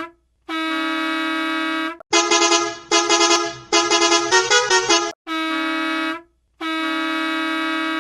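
Bus horn blasts: a steady blast of about a second and a half, then about three seconds of a multi-tone musical horn stepping quickly through different pitches, then two more steady blasts of about a second each.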